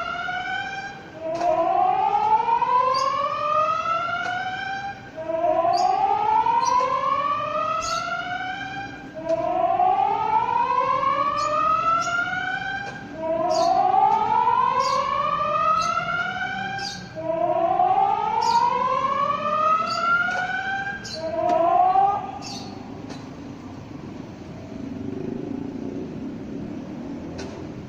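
Muntinlupa City's emergency public warning siren sounding a test. It repeats a rising whoop, each sweep climbing in pitch over about four seconds, then dropping back and starting again. After five full sweeps a short sixth one breaks off, and the siren stops a little past the 22-second mark.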